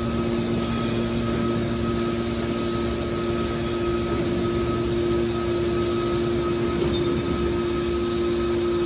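Hydraulic scrap-metal baling press running: its motor and hydraulic pump hum steadily while a hydraulic cylinder swings the press lid open.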